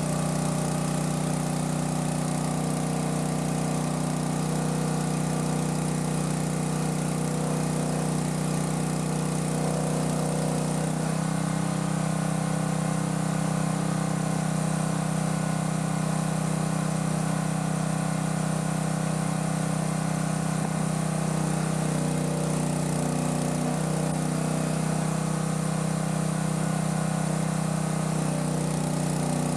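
Small gasoline engine of a portable water pump running steadily while it pumps water out of a swamped boat, with the rush of the discharge jet over it. The engine's tone shifts about eleven seconds in, as the outflow drops from a strong jet to a weak one.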